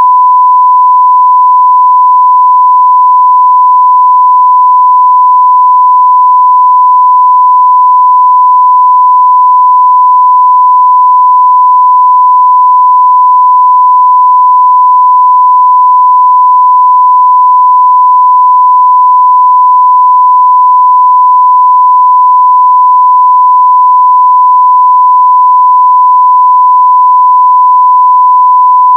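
A continuous 1 kHz sine-wave test tone at full level (0 dB), one pure steady pitch with no change.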